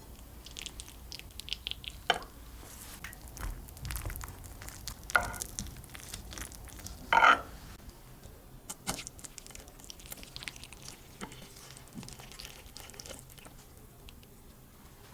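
Utensils handling a baked dish: irregular clicks and scrapes, with three sharper knocks or scrapes about two, five and seven seconds in, the last one the loudest and longest.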